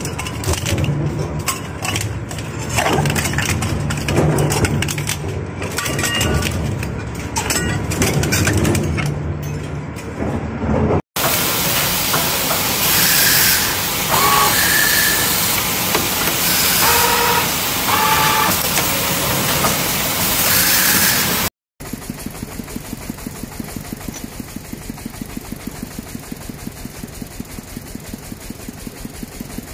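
Factory machines in three cuts. First a twin-shaft metal shredder's cutter discs crunching metal pieces over a low motor hum. About eleven seconds in, an automatic wire-forming machine runs with loud steady noise and short high tones, and near the last third a strip-and-wire roller machine runs with a fast, even rhythmic clatter.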